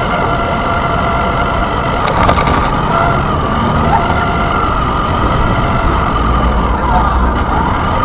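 Electric RC monster truck driving on pavement, heard from its onboard camera: a steady motor whine over the rumble of the tyres rolling, with busy street noise behind.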